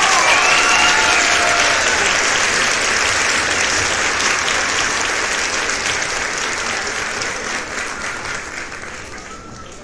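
Applause sound effect: a crowd clapping, with cheering voices over it in the first second or so, fading steadily toward the end.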